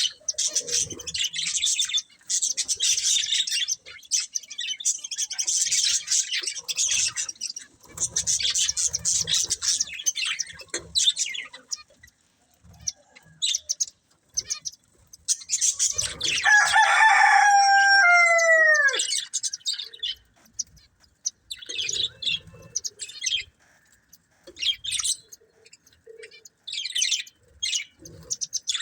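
Budgerigars chirping and warbling in rapid chatter for about the first eleven seconds, then scattered short chirps. Past the middle comes one loud, long call of about three seconds that falls in pitch at its end.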